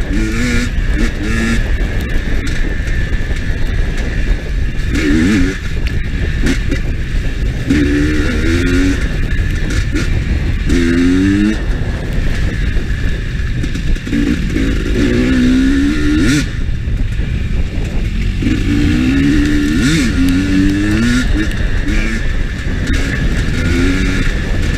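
GasGas EC300 two-stroke enduro bike engine heard from on board, revving up and falling back again and again as it rides a rough lane, over heavy wind rumble on the microphone. Scattered knocks from the bike going over stones.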